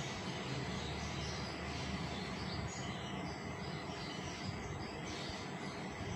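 Steady low background noise with faint, high chirps over it.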